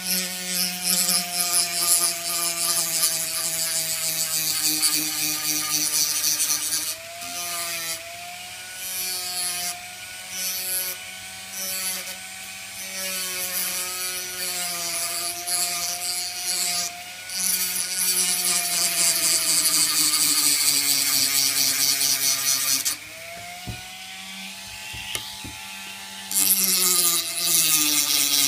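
Handheld rotary tool running with a steady whine while its small abrasive wheel grinds and smooths a green carving-wax model with a hissing scrape. The pitch sags when the wheel is pressed in, and the scraping drops out for a few seconds at a time, longest about two thirds of the way through.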